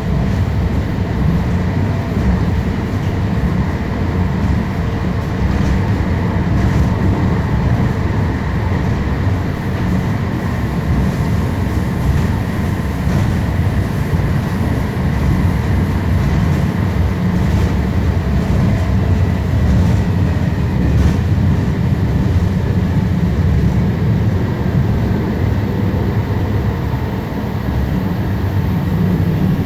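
O-Train Confederation Line light-rail car (Alstom Citadis Spirit) running along the track, heard from inside the car: a steady low rumble of wheels on rail with faint steady high tones over it.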